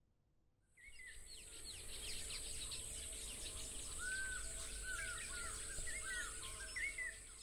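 Birdsong ambience: many small birds chirping over a steady high hiss. It comes in about a second in, and fuller arched calls join about halfway through.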